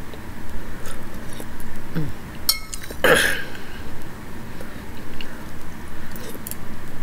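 Eating pozole with a metal spoon: the spoon clinks against the bowl, broth is slurped off the spoon (loudest about three seconds in), and there is chewing between spoonfuls.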